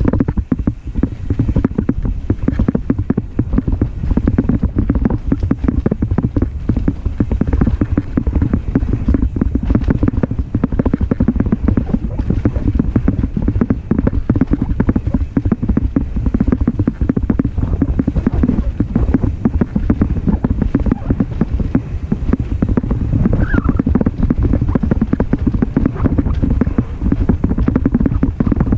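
Mountain bike riding fast down a dirt trail: a constant low rumble of knobby tyres on packed dirt, with dense rattling and knocking from the bike jolting over the ground.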